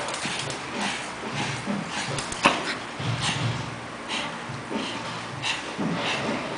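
A Pekingese and an English bulldog puppy play-fighting: a run of short, rapid dog noises and breaths, two or three a second, with one sharp knock about two and a half seconds in.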